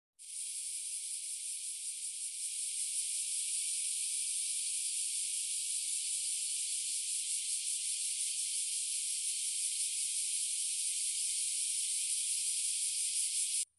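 Cicadas droning in a steady, high, sizzling hiss that cuts off abruptly near the end.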